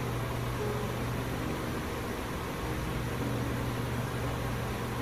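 Steady low mechanical hum of running machinery, even throughout.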